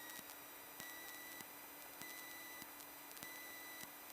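Faint steady hiss from the aircraft's intercom audio, with a regular tick about every half second and a thin high whine running under it.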